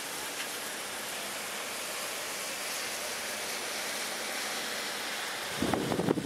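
Steady hiss of rain falling on wet pavement. Near the end a short, louder, uneven burst of sound cuts in.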